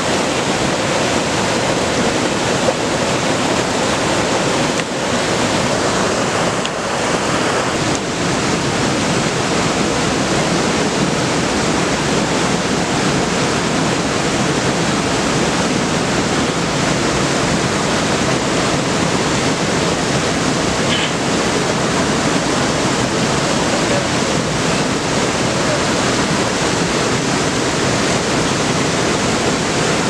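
Steady rush of stream water.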